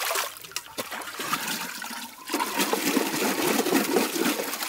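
Water sloshing and splashing in a metal basin as a clay pot is washed in it by hand, louder from about halfway through.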